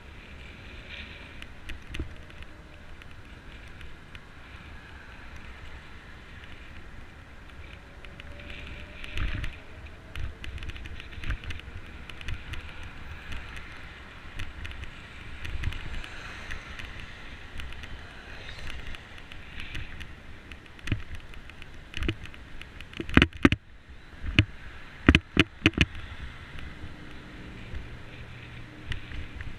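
Bicycle rolling along a concrete path beside highway traffic: a steady hiss of passing cars and wind, broken by frequent rattling knocks from the bike and its mounted camera jolting over bumps. The knocks are loudest in a quick cluster about three-quarters of the way through.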